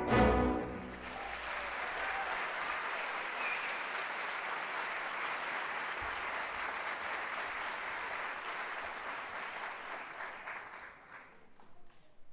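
An orchestra's closing chord ends in the first second, then a theatre audience applauds steadily, the clapping dying away near the end.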